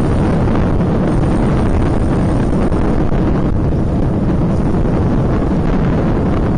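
Wind rushing over the microphone of a camera on a moving road bicycle: a loud, steady rush.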